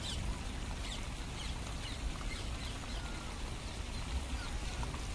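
Birds calling with short, falling chirps, about two a second, over a steady low rumble.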